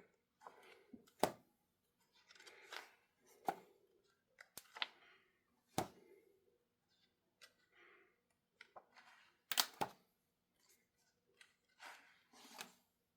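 Glossy pages of a large hardcover book being turned one after another, each turn a short paper rustle with a crisp snap, every second or two.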